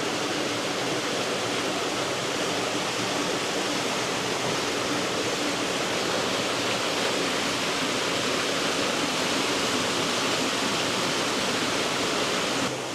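Steady rushing of water over a small cascade in a partly frozen river, an even hiss that drops a little in level near the end.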